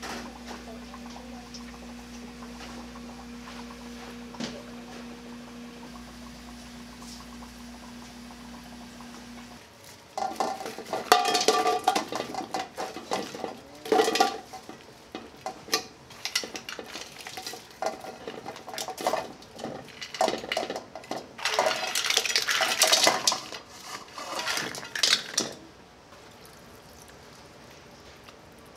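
A steady machine hum, then from about ten seconds in, repeated clattering and clinking as mussel shells, sliced radish and other seafood are laid into a steel wok by hand, settling to quiet near the end.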